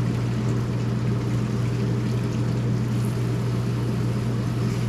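Tap water running steadily as the RV air conditioner's vent filter is rinsed, over a steady low hum.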